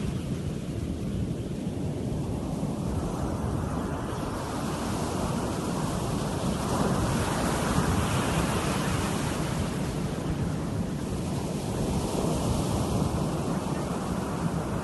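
Ocean surf breaking and washing up a sandy beach, with wind rumbling on the microphone. The wash swells twice, a few seconds in and again around ten seconds.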